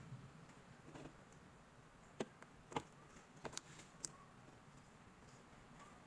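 Faint clicks and taps, about five between two and four seconds in, as a brake caliper piston and its rubber seal are handled and fitted together.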